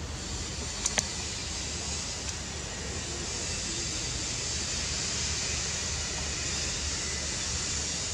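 Steady outdoor hiss with two sharp clicks close together about a second in.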